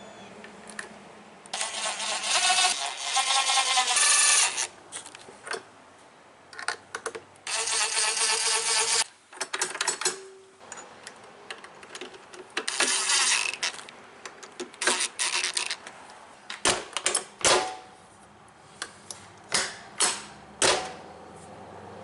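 Craftsman brushless cordless drill driving screws into the door lock's latch plate: three runs of a few seconds each, the motor whine shifting in pitch under load. After them comes a string of sharp clicks and knocks.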